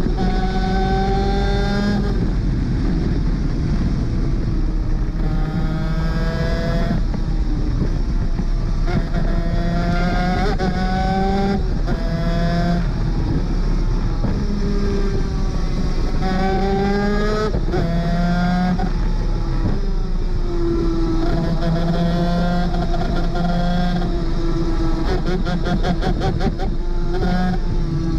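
250cc two-stroke superkart engine at racing speed, rising in pitch as it accelerates and dropping sharply at each gear change, several times over. For a few seconds in the second half it holds a high, steady pitch.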